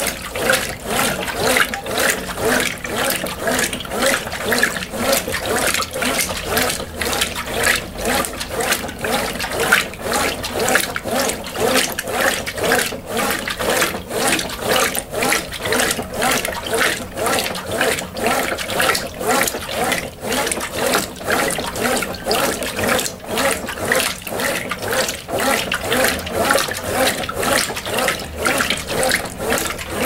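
Brastemp Ative! BWP11 top-load washing machine agitating its load in the rinse water: rhythmic sloshing and churning of water and wet clothes in the tub, swelling and easing in a steady cycle.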